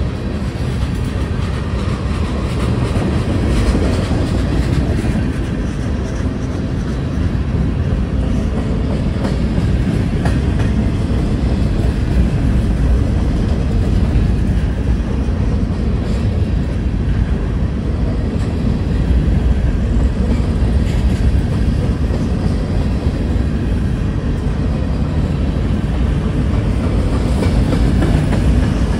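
Freight train of tank cars and covered hopper cars rolling steadily past close by: a continuous low rumble of steel wheels on the rails, with occasional clicks.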